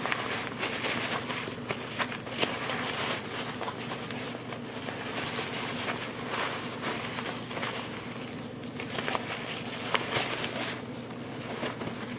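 Ripstop nylon daypack fabric rustling and crinkling as it is handled and stuffed into its own pocket, with many small crackles throughout.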